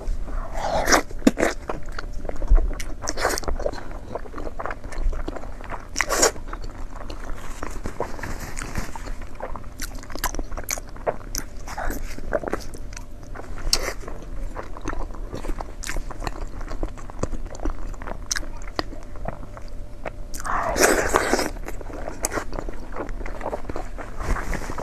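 Close-miked mukbang eating: a person biting and chewing, with irregular wet, crunchy clicks. There is a longer, louder crunchy stretch near the end.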